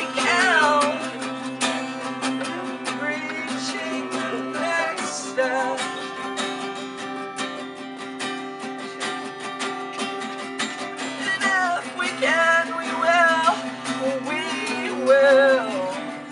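Acoustic guitar strumming and picking chords, with a voice singing in a few short phrases.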